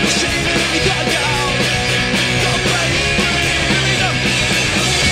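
Punk rock band playing live: electric guitars over a drum kit with steady cymbal and drum hits.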